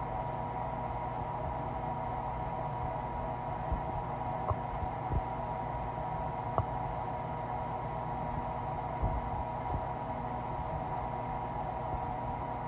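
Hungry, empty stomach gurgling: a handful of short, low pops scattered through the middle over a steady hiss and hum.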